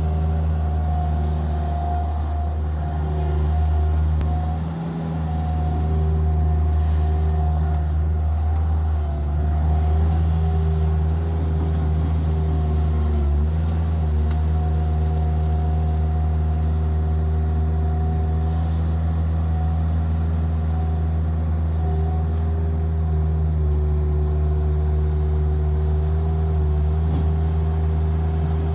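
Bobcat 763 skid steer's diesel engine running at a steady speed, deep and even, with a brief dip about five seconds in.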